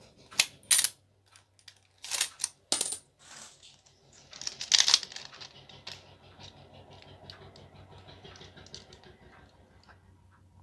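Coins clinking and rattling in a metal tin as a ring-necked parakeet picks at them with its beak. There are a few sharp clinks in the first three seconds and a louder jingling burst about five seconds in, then faint rattling.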